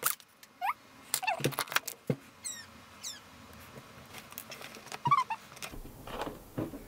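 Handling noises of a plastic pet water fountain being assembled: a few light clicks and knocks as the pump's power cable is worked through the plastic tube, with two short high squeaks a little after two seconds in.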